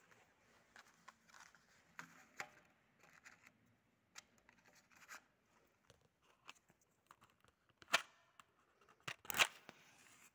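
Handling noise: soft rustling and small clicks, then two sharper sounds about 8 and 9.5 seconds in, the second a short scrape.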